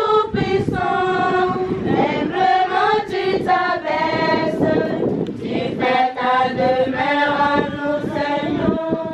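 A choir singing together, several voices holding notes and moving through short sung phrases.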